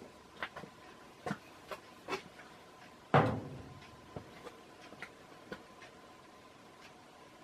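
A scattering of light clicks and knocks, with one much louder thump about three seconds in, over a faint steady hum.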